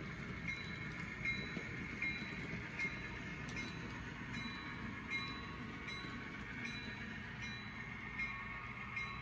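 HO scale model freight cars and diesel locomotives rolling slowly on the layout track: a steady rumble with light clicks about every three-quarters of a second as wheels cross rail joints.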